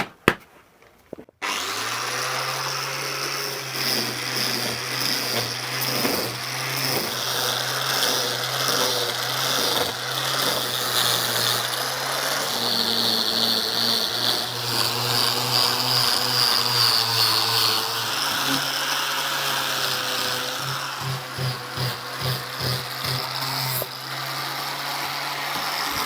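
Handheld electric power tool sanding a wooden board, switched on about a second and a half in and then running steadily, its pitch and level wavering as it is pressed into the wood.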